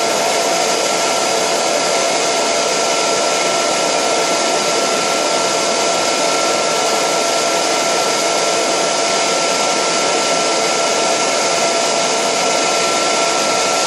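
Degritter ultrasonic record-cleaning machine blowing air to dry the record after its bath has drained: a steady rush of air with a thin constant whine. This drying stage is the loudest part of the machine's cycle, around 70 dB.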